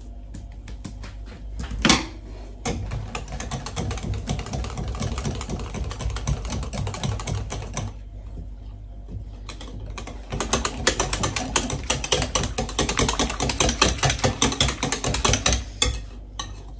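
Rapid, dense clicking and rattling of a hand utensil working flour and pancake batter in a bowl, in two runs of about five seconds each with a short pause between, after a single knock about two seconds in.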